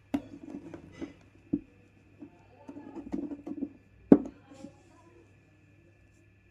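Pieces of chalk crunching and snapping: a few sharp cracks, the loudest about four seconds in, amid bursts of crumbly crackling.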